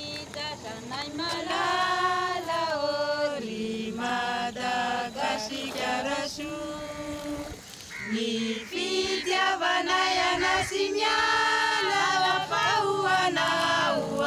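Choral singing: several voices singing together in long held notes that step up and down in pitch.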